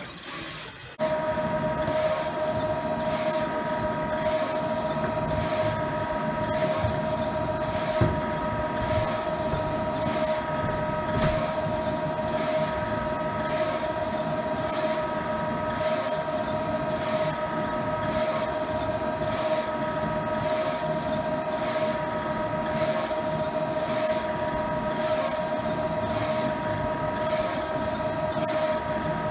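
PLUV6040 UV flatbed printer printing a nozzle test. A steady machine hum with a few high whining tones starts about a second in, with a regular swish about once a second as the print-head carriage passes back and forth.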